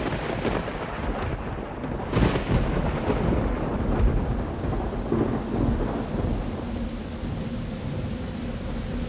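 Thunderstorm sound effect: steady rain hiss under rolling thunder, with a louder thunder swell about two seconds in.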